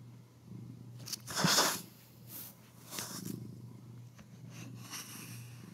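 Quiet room tone during a pause: a steady low hum with a few short, soft noisy sounds, the loudest about one and a half seconds in.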